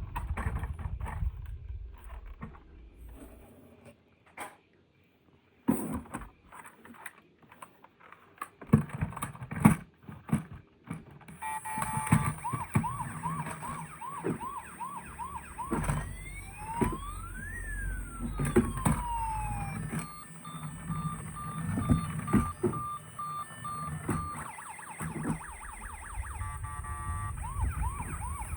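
Plastic toys and packaging being handled, with scattered knocks and clicks. From about twelve seconds in, a toy emergency vehicle's electronic siren cycles through its sounds: a fast repeating yelp, then a rising and falling wail, then a beeping tone, then the yelp again near the end.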